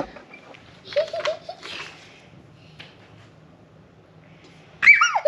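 Young child's hushed giggles about a second in, then near the end a brief high-pitched squeal that falls sharply in pitch; otherwise a quiet room.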